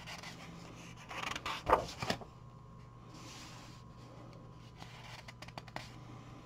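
A coloring book's paper page being turned by hand: a rustle about a second in that ends in a sharp flap of the page. A few faint light taps of the hand on the paper follow near the end.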